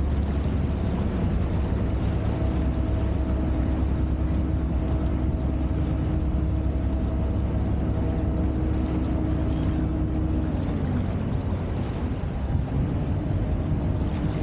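Motorboat engine running steadily under way, a low drone mixed with rushing water and wind on the microphone; the engine note dips a little about ten seconds in.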